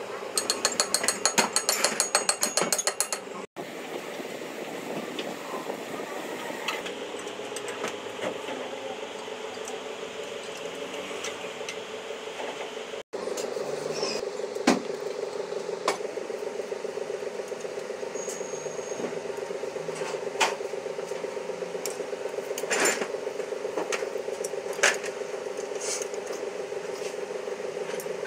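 Ratchet wrench clicking rapidly for a few seconds as bolts are turned during engine reassembly, then a steady hum with a few sharp metal clinks of hand tools.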